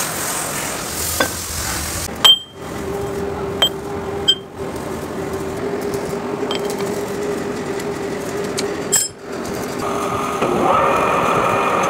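Metal lathe in a workshop: a steady machine hum broken by several sharp metallic clinks and knocks. Near the end a higher whine builds as the chuck starts to spin.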